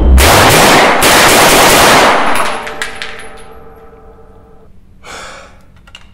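Heckler & Koch MP5 (HK54) 9mm submachine gun firing full-auto in long continuous bursts, with a brief break about a second in. The firing stops a little over two seconds in, and the ring of the shots fades away.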